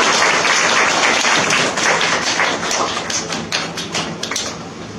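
Applause from a small audience: dense clapping at first, thinning after about two seconds to scattered single claps and dying away near the end.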